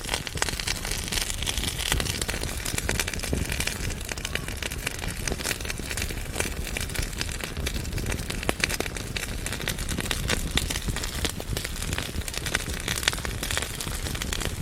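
Wood fire burning in a fireplace, crackling and popping constantly over a low rumble of the flames.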